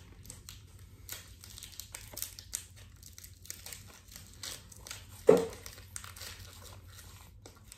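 Foil wrapper of a Pokémon booster pack crinkling and tearing open in the hands, then the cards being handled, with small crackles throughout. One short, louder sound about five seconds in.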